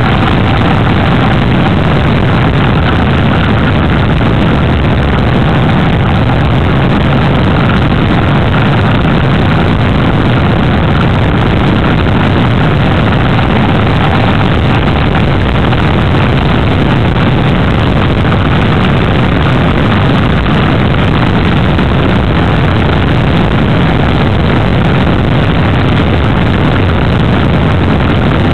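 Motorcycle riding at road speed: the engine runs steadily under a heavy, even rush of wind on the microphone.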